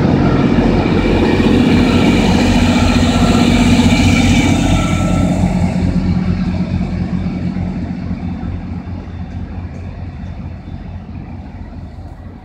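MAN class 621 diesel railcar train passing close by, its engine running with a steady low drone and its wheels rumbling on the rails. About halfway through the sound starts to fade steadily as the train draws away down the line.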